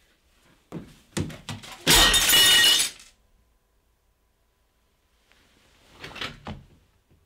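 Glass in a picture frame breaking: a few sharp knocks, then a loud shatter lasting about a second, starting two seconds in. A shorter, softer sound follows near the end.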